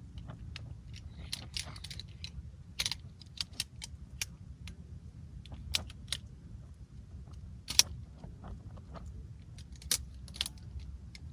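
Small hard objects being handled: irregular sharp clinks and clicks, a dozen or so, over a steady low rumble.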